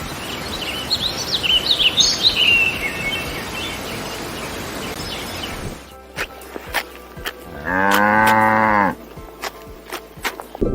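Outdoor ambience with birds chirping, then a cow mooing once, a single drawn-out call of just over a second, with scattered clicks around it.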